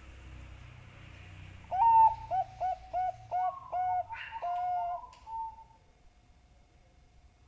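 Zebra dove (Bangkok-type perkutut) cooing: a run of about seven short coo notes over some four seconds, the first the loudest and a longer note near the end.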